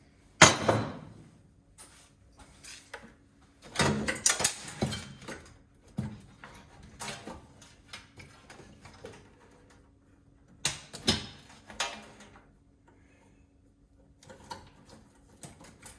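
Irregular metal clanks, knocks and scrapes as the press-fitted brass and copper fittings of an LPG instant water heater are worked apart by hand. The loudest knock comes about half a second in, followed by rattling clusters of knocks.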